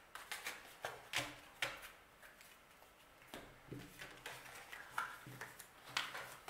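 Tarot cards being picked up and gathered into a stack on a cloth-covered table: scattered soft slides and light taps of card on card, about one a second.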